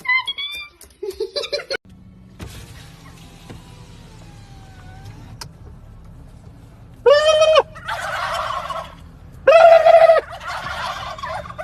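A turkey gobbling: two loud calls about two and a half seconds apart, each trailing off into a second of noisy rattle.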